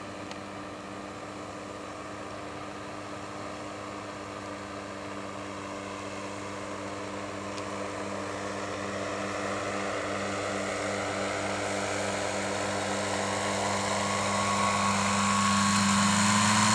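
A powered parachute's engine and caged pusher propeller running with a steady drone, growing steadily louder as the craft descends and comes in to land.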